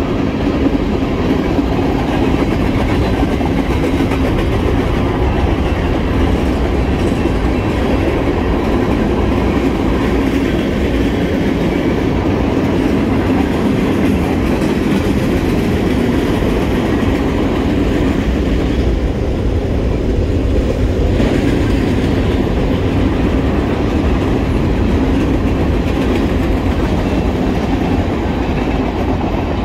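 Freight train of covered hopper cars rolling past, a steady loud rumble of steel wheels running on the rails.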